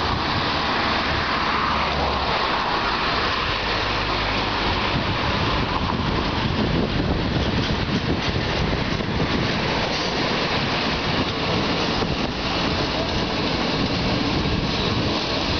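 Diesel locomotive hauling a passenger train into the station. Its engine is heard as a low drone for the first few seconds, then the steady rumble of the coaches' wheels on the rails as they roll past.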